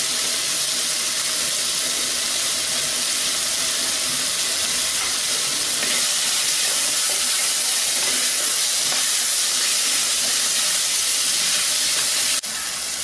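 Diced vegetables frying in oil in a clay pot with a steady sizzle, stirred with a wooden spatula. The sizzle drops suddenly to a lower level near the end.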